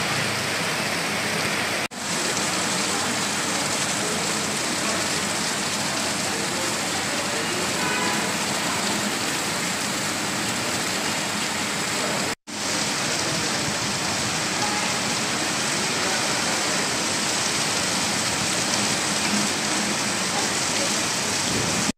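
Heavy rain falling steadily, a continuous even hiss of the downpour on road and rooftops, broken by two brief dropouts, about two seconds in and just past the middle.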